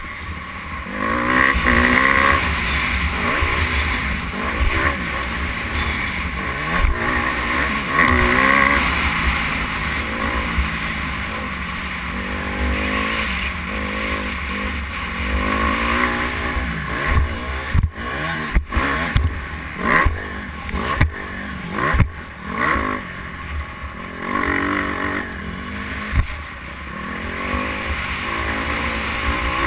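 Dirt bike engine revving up and dropping off again and again as the rider accelerates, shifts and lets off, heard from a helmet-mounted camera. Several sharp knocks come close together a little past the middle.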